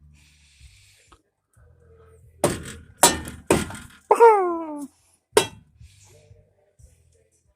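Several sharp knocks or bangs, with a short animal cry falling in pitch between them.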